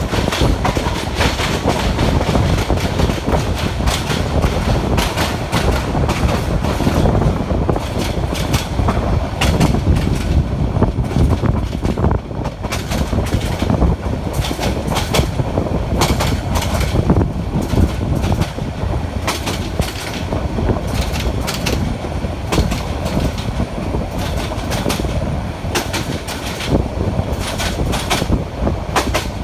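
Passenger train running, heard from aboard at an open window: a steady low rumble of wheels on the track with a clickety-clack of sharp clicks as the wheels pass over rail joints.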